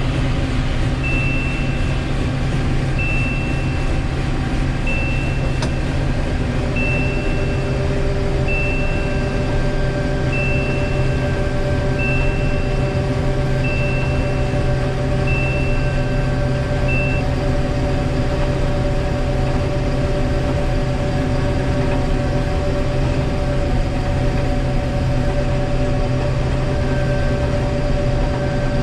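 Combine harvester running steadily, heard from inside the cab while it unloads grain on the go. A short high electronic beep repeats about every two seconds and stops a little past halfway.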